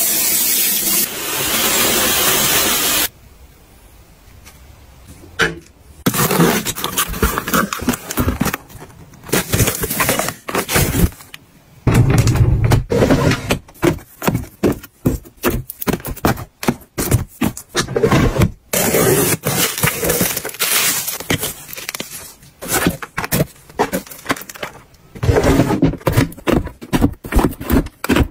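Water from a basin tap running onto wet hair, cutting off after about three seconds. Then, after a short lull, boxes are handled and pushed into plastic storage drawers: a long run of quick knocks, taps, scrapes and rustles of cardboard on plastic.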